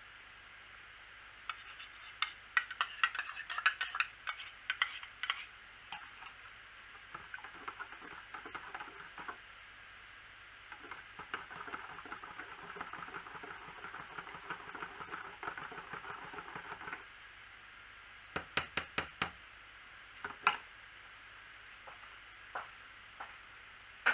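A metal spoon clinking and scraping as the last lye is knocked out of a small cup, then stirring lye dissolving in water in a plastic jug, with a quick run of about five taps near the end and one more tap after.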